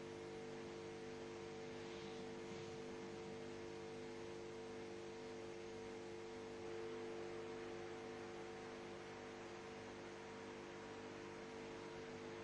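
Faint, steady electrical hum and hiss on the audio line: several steady tones, one of them pulsing faintly and evenly, over a low hiss.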